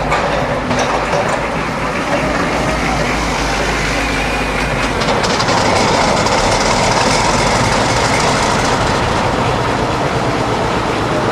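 Freight train running past, its wheels clattering over the rail joints in a steady, loud rumble that swells a little about halfway through.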